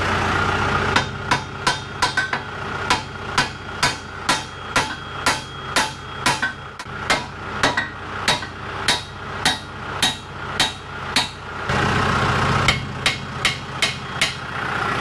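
Repeated hammer blows on steel, about two to three a second for roughly ten seconds, followed by a few more strikes as a diesel engine idles.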